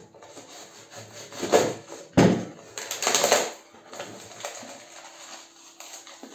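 Packaging being handled and pulled open, with rustling and scraping in several bursts, the sharpest about two seconds in.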